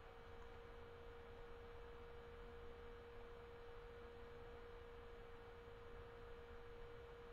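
Near silence: room tone with a faint steady tone at one pitch and a low hiss.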